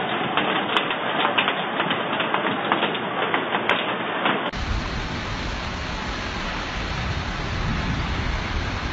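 Rushing floodwater in a flash flood: a steady rush with many small clicks through it. After a cut about four and a half seconds in, it becomes a deeper, rumbling rush.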